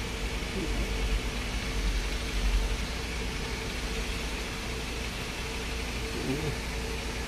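Steady low mechanical hum with a faint held tone, with a stronger low rumble about two seconds in.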